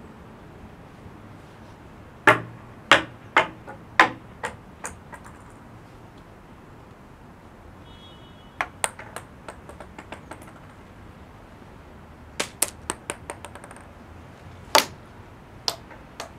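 Acorns falling onto stone paving: sharp clicks as they land and bounce. They come in three bursts of several quick taps each, then a few single knocks near the end.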